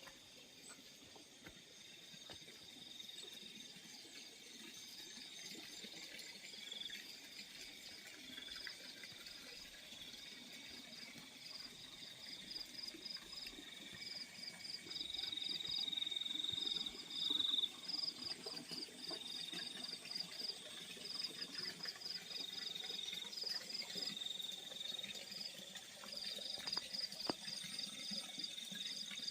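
Crickets chirping in the fields at night: several insects at once, one in rapid trains of pulses broken by short gaps, another in a steadier high trill. The chirping grows louder about halfway through.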